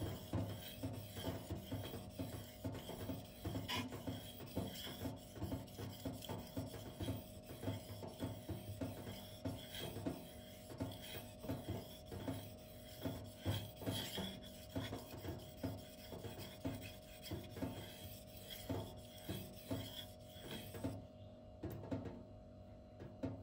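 M390 steel knife blade being stroked over a Shapton 2K whetstone: a run of short, gritty scrapes, a little under two a second, as the edge is worked up to a burr. The strokes grow slightly duller near the end.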